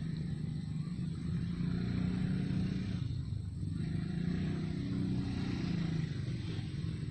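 A motor engine running steadily, its hum swelling and easing twice, as of a vehicle or boat going by.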